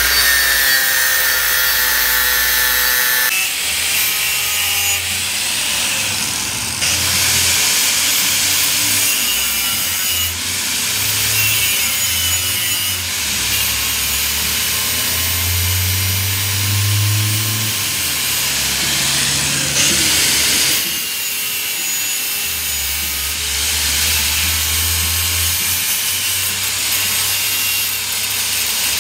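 Electric angle grinder with an abrasive disc grinding the threaded steel end of a truck's rear axle spindle, part of reworking its damaged threads. It is a loud, continuous grinding hiss, and the motor's pitch wavers up and down as the disc is pressed on and eased off. There is a clearer high whine for the first few seconds.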